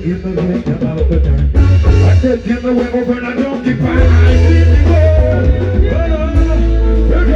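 Live band music with a heavy bass line, guitar and singing. The bass settles on one long steady low note from about six seconds in.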